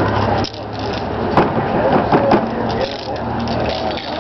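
Indistinct background voices of people talking over a steady low hum, with a few sharp clicks or taps about a second and a half and two seconds in.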